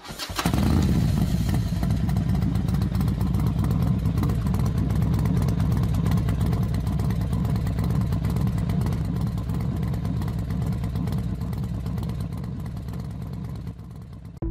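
Motorcycle engine running loudly and steadily with a rapid, even beat, starting suddenly and dying away over the last second or so.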